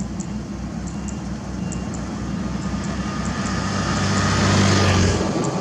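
Diesel engine of a Sakai TS205 pneumatic-tyre road roller running at work, growing louder to a peak about five seconds in, then easing off. Faint regular high ticks run through it.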